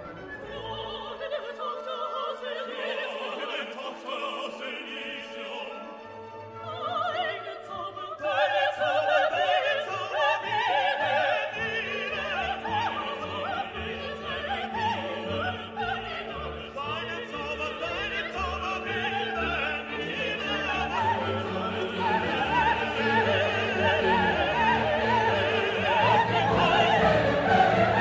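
Background music: an orchestral classical piece with operatic singing, growing louder about eight seconds in.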